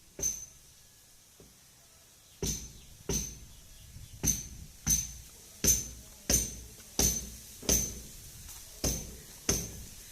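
Hammer blows on metal: a single strike, a pause, then a steady run of about ten strikes, roughly one every two-thirds of a second, each with a short bright metallic ring.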